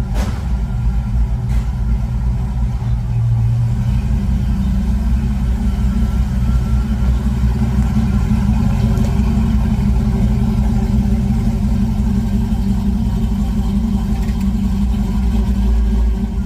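Car engine running with a deep, steady low rumble that holds level throughout, with a brief click right at the start.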